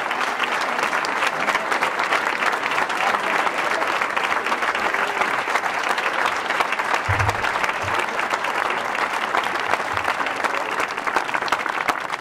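Large audience applauding: many hands clapping in a steady, dense patter that holds throughout.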